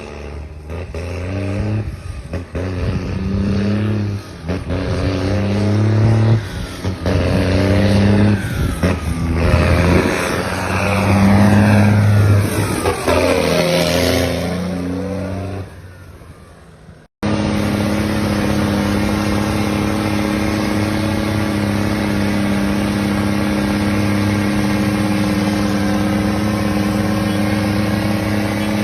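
Engines revving through loud exhausts: repeated blips rising and falling in pitch, at times two notes crossing each other. About two-thirds of the way in the sound cuts off abruptly and gives way to a steady, even engine note.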